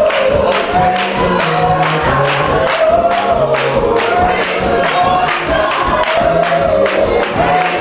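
Gospel song sung by a choir and congregation over a bass line and a steady beat.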